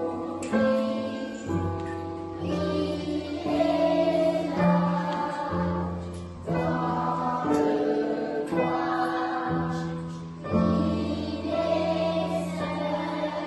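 A children's choir singing with upright piano accompaniment, in held notes that change about once a second.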